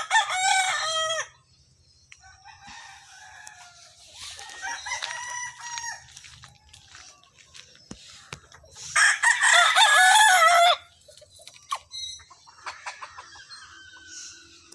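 Gamefowl roosters crowing: a loud crow at the start, a fainter crow about four seconds in, and another loud crow about nine seconds in.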